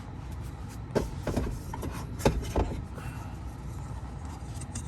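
Handling noise: a few light knocks and clicks, about a second in and again just past two seconds, over a steady low hum in the car cabin.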